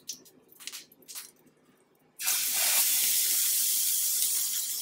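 Raw ground-beef patty set down on a hot griddle in bacon grease, starting a loud, steady sizzle about two seconds in that slowly fades. A few faint clicks come before it.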